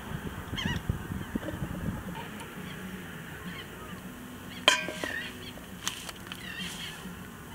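Birds calling again and again with short, bending honking cries. About two-thirds of the way through, one sharp metallic clank rings out, metal tongs against a steel bowl.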